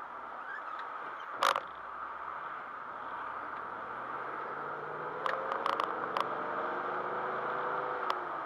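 Car cabin noise picked up by a dashcam: a steady road and engine hum, with the engine note climbing for a few seconds from about four seconds in as the car accelerates, then falling away near the end. A sharp knock or rattle sounds about a second and a half in, and a few more quick clicks come around five to six seconds in.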